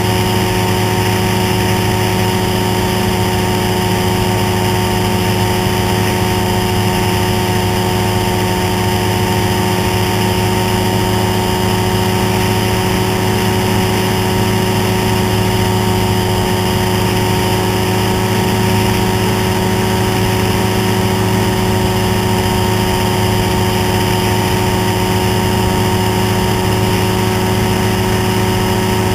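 Ultralight trike's engine and propeller running at a steady cruise setting in flight: one constant drone that does not change in pitch or level.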